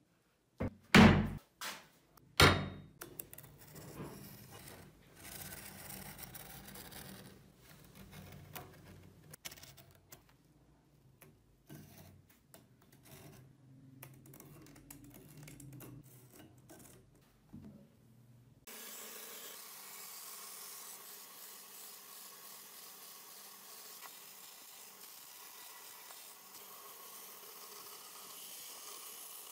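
Two heavy thunks as a wooden board is set on a workbench, then quieter scraping and tapping while the wood is marked out around a metal template. About two-thirds in, a steady noise starts suddenly: a bandsaw cutting through the wood.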